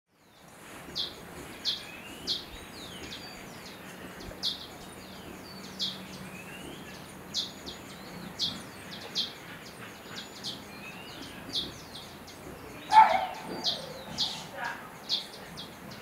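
Birdsong: short high chirps repeating every half second to a second, with thin falling whistles between them, over a steady background hiss. A louder, lower call comes about thirteen seconds in.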